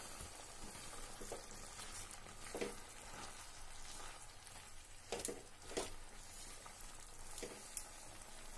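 Spinach and mixed vegetables sizzling quietly in a kadai while being stirred with a silicone spatula, with a few soft scrapes of the spatula against the pan.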